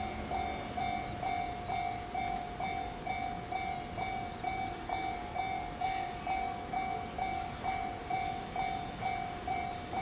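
Japanese railway level-crossing warning bell ringing in a steady, even rhythm of a little over two electronic dings a second, each a clear mid-pitched tone with fainter overtones above. It is the crossing's alarm while the lamps flash and the barriers are down, signalling that a train is approaching.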